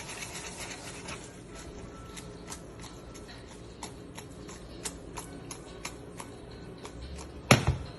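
Pasta cooking in a pan: irregular small pops and clicks, about two or three a second, with one louder knock near the end.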